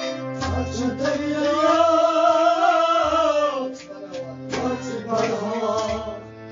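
Kashmiri Sufi song: a voice holds one long note that rises and falls, over instrumental accompaniment with drum strikes.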